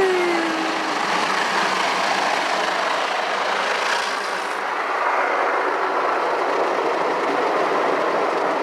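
Automatic car wash spraying water and soap onto a car, heard from inside the car as a steady rushing hiss; the high part of the hiss drops away about halfway through. A pitched hum fades out within the first second.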